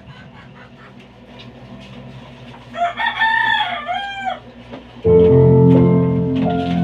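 A rooster crows once, about three seconds in, a single call of a second and a half. About five seconds in, loud backing music with sustained chords starts abruptly.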